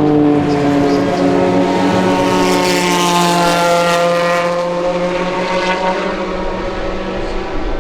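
Ferrari F430 GT2 race car's flat-plane V8 running at high revs as it passes by, at a fairly steady pitch, its sound brightest and sharpest around the middle before easing off.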